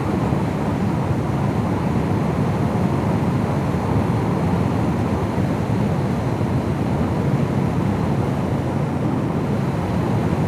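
Steady drone of a car driving, heard from inside the cabin: tyre and engine noise, unchanging throughout.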